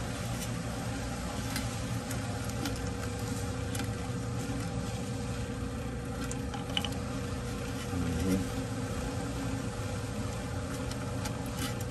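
A steady low hum with a faint buzz, from some running machine, with a few faint clicks.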